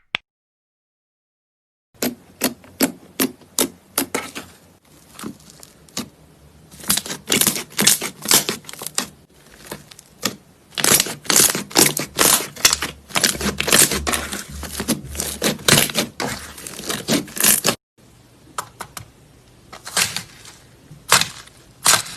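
Crunchy slime being pressed and squeezed by hand, giving dense, irregular crisp crackles and pops. They begin about two seconds in, after a single click and silence, and break off briefly near the end.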